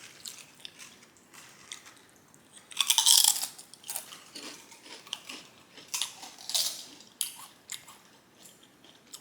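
Crunchy bite into an Utz Red Hot potato chip about three seconds in, loudest at the bite, followed by a run of crisp crunches as it is chewed.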